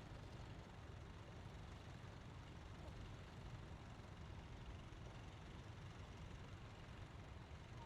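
Faint, steady low engine rumble of a Massey Ferguson 135 tractor pulling a plough.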